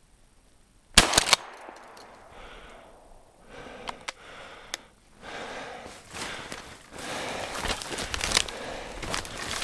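A shotgun shot about a second in, loud and short. A few sharp clicks follow, then footsteps crunching through snow and dry brush.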